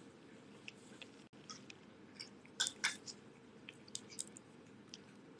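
A cat licking and chewing at a squeeze-tube treat, with faint wet smacks and small clicks, a few louder ones about halfway through.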